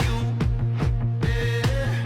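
Background music: a funk-pop track with a steady kick-drum beat and bass line.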